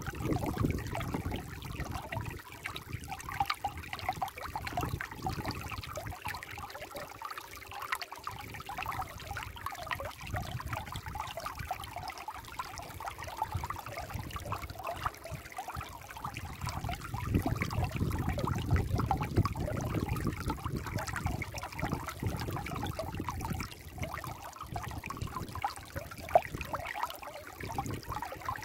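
Shallow stream trickling and babbling over rocks and pebbles, a continuous splashing that swells a little louder for a few seconds past the middle.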